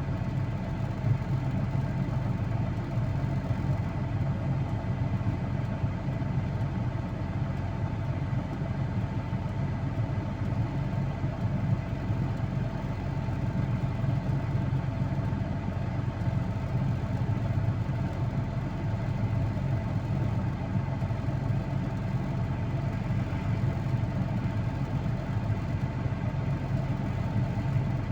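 A vehicle engine running steadily: a constant low drone that holds the same speed throughout, with no revving.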